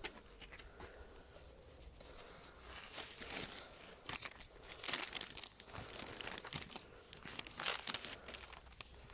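Faint, irregular rustling and crackling, with scattered soft clicks that come thicker in the middle: handling noise from the camera or phone being moved about.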